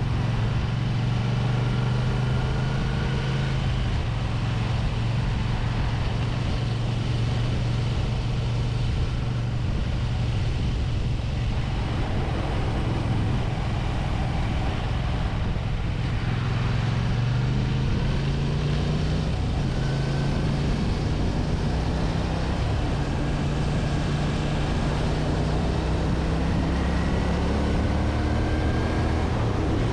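1985 Honda VT250F Integra's V-twin engine running on the road, with wind and road noise. The engine note holds steady, then climbs a couple of times in the second half.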